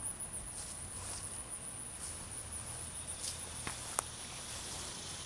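A steady, high-pitched insect trill over a faint low outdoor hum, with soft footsteps and a sharp click about four seconds in.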